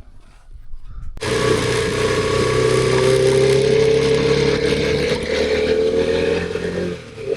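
KTM 390 Adventure's single-cylinder engine running under way, starting suddenly about a second in with a steady note that creeps slowly higher, then a brief drop about seven seconds in.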